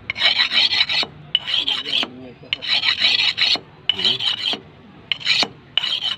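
A handheld sharpening stone scraping along the steel blade of a large butcher's knife, in a series of rasping strokes about one a second, as the knife is sharpened.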